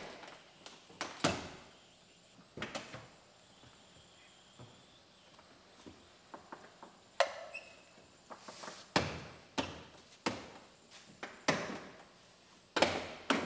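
Plastic interior trim panels in an SUV's cargo area being handled and pulled free of their clips: irregular sharp clicks, snaps and knocks with short pauses between them.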